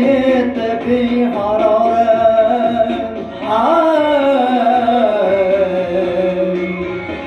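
A man singing in long, held notes; about three and a half seconds in, his voice slides up into a high note that then falls slowly away.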